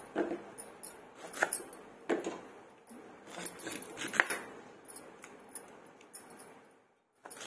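Raw green mangoes being cut on a hansiya, a curved floor-mounted blade: scattered crisp cuts and knocks of fruit against the blade, mixed with bangles clinking on the moving wrists. The sound cuts out completely for a moment near the end.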